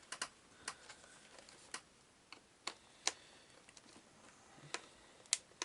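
Faint, irregular sharp clicks and taps of a hand screwdriver and the clock radio's plastic casing being worked as a screw is driven into the case, about a dozen clicks at uneven spacing.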